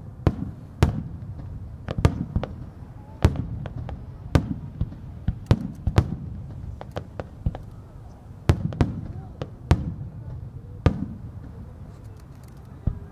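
Aerial firework shells launching and bursting in an irregular series of sharp bangs, about one or two a second, over a continuous low rumble.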